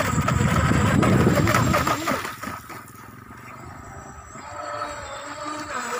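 Volantex Atomic brushless RC tunnel-hull boat running fast on the sea, its motor a faint whine under low rumbling wind and water noise on the microphone. The rumble is loud for the first two seconds, then drops so the whine stands out more.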